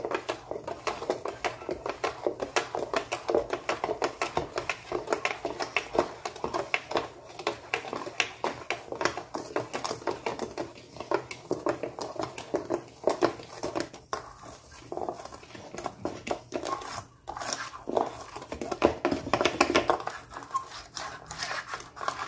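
Wire balloon whisk clicking and scraping against a stainless steel mixing bowl in rapid, repeated strokes, beating water into a flour, sugar and powdered-milk batter.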